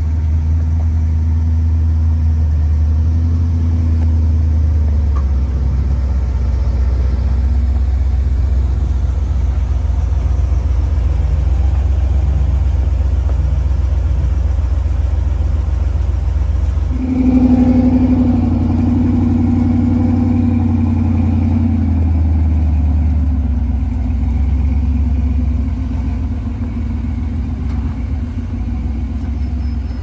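Engines of off-road four-wheel-drive vehicles running at low speed as they crawl over rocks, a steady low rumble. A little over halfway through one engine is revved harder for about five seconds, then settles back.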